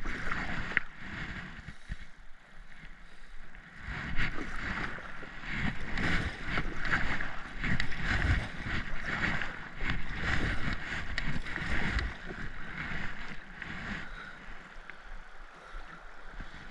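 Kayak paddle strokes splashing, with river water rushing along the hull, rising and falling about every second or so, and some low wind rumble on the microphone.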